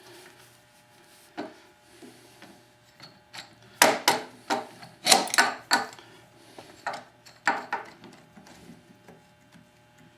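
Irregular wooden and metal knocks and clatter as a bench-mounted dovetail vise is shifted into place on a workbench and a clamp is set on it, with a cluster of sharp knocks in the middle.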